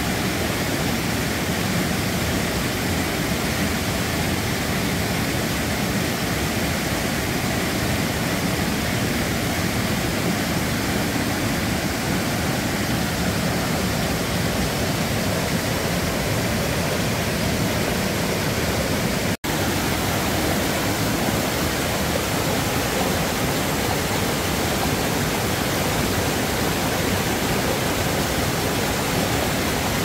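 Steady rushing of a small waterfall and fast mountain-stream water pouring over rocks into a pool. It breaks off for a split second once, about two-thirds of the way through.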